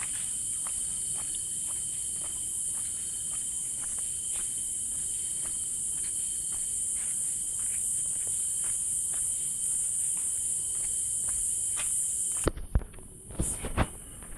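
A steady high-pitched chorus of forest insects, with faint regular footfall-like ticks about twice a second. Near the end the chorus cuts off suddenly and a few loud knocks or footsteps follow.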